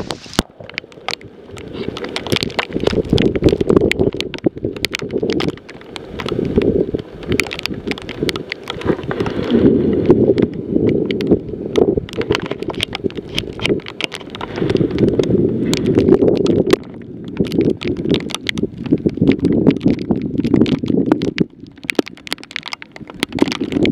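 Strong gusty wind buffeting the microphone in repeated surges, with many sharp ticks from wind-driven salt rain striking it. The waterspout's own roar is drowned out by the wind.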